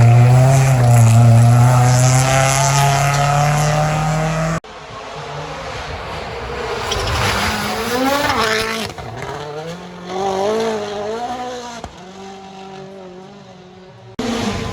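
Rally car engines at high revs. The first car holds a loud, steady note that cuts off abruptly about a third of the way in. After that, quieter engine notes rise and fall in pitch with gear changes as cars pass.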